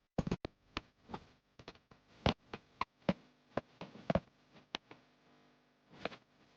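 Irregular sharp taps and clicks of wooden cam-clamp parts being handled and set against one another during a glue-up, about fifteen knocks at uneven spacing.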